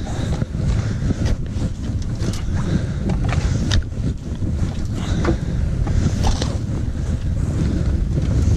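Wind buffeting the microphone in a steady low rumble, with scattered short knocks and scrapes of hand tools digging and shifting earth.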